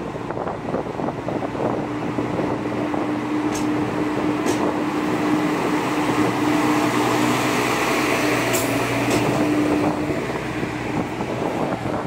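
MRT300-series diesel railcar pulling away from the platform, its engine running under load with a steady hum. The sound grows louder as the car passes close by and eases off near the end. A few sharp clicks come in the middle stretch.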